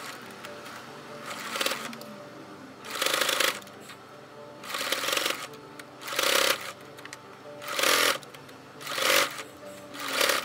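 Household electric sewing machine stitching in short stop-start runs, about six bursts of under a second each, as lace trim is sewn onto fabric.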